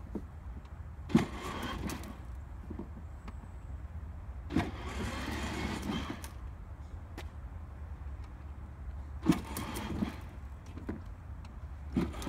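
Battery-powered kids' ride-on toy car driven in short spurts: four times, a sharp click is followed by about a second of electric motor whir and plastic wheels rolling on concrete, the last starting near the end.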